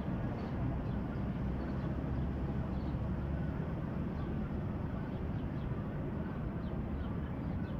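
Steady low background rumble, with a few faint short high chirps scattered through it.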